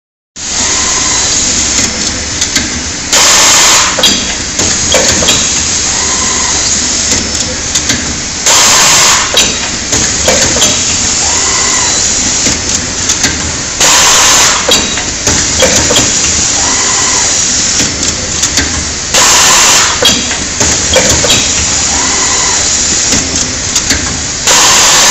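Shock tube coiling machine running through its winding cycle. A loud blast of compressed-air exhaust from its pneumatic cylinders comes about every five and a half seconds. In between, the spindle drive gives short whines that rise and fall, with scattered clicks and knocks of the actuators over a steady mechanical background.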